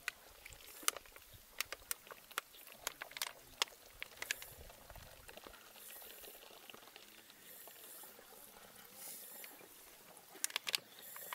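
A cow drinking from a water trough: a string of sharp, wet slurps and splashes over the first few seconds and a quick cluster of them near the end, over a faint steady hiss.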